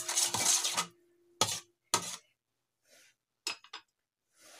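A spoon stirring batter in a stainless steel mixing bowl, scraping and clinking against the metal for about a second, with a faint ring from the bowl. Two sharp clinks follow, then a quick few light taps.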